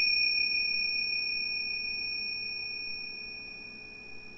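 A small bell or chime, struck once just before, ringing on as a high, clear tone that fades slowly.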